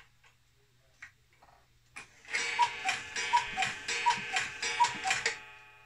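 Sternreiter Jumping Deer cuckoo clock striking four o'clock. A few soft clicks come as its hands are turned. Then, about two seconds in, there are four two-note cuckoo calls, each a higher note followed by a lower one, over a breathy rush.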